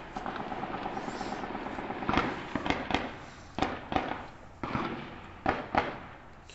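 Gunfire in a sustained shootout: a fast crackle of rapid shots for about the first two seconds, then scattered single sharp shots and short pairs through the rest.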